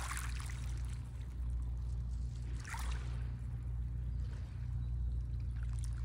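Small, gentle sea waves washing onto a pebble beach: a soft hiss of water over stones about every three seconds, three times, over a steady low rumble.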